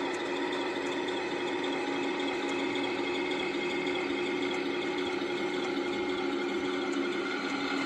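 Electric drive motors and 3D-printed plastic gearbox of a 1/10-scale RC tank running with a steady whine.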